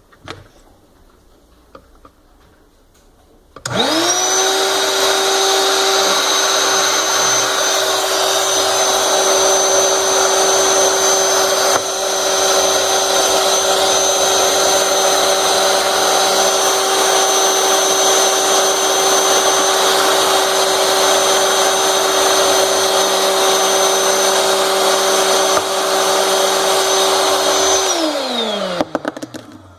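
Electric air-mattress inflator pump switched on about three and a half seconds in. Its motor rises quickly to a steady whine and runs evenly, drawing air through its intake. Near the end it is switched off and the whine falls in pitch as it spins down.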